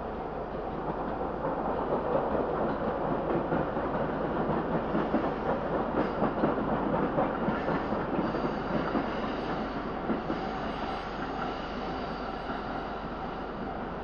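A local electric train passing over a level crossing, rising about two seconds in, with uneven loud peaks, and fading after about ten seconds, heard from inside a car waiting at the crossing.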